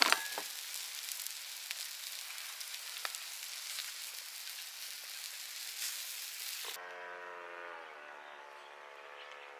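Food sizzling hard on the heat, with small crackling pops. About seven seconds in the sizzle cuts off abruptly and a steady pitched horn-like tone of several notes together takes over, dipping slightly in pitch.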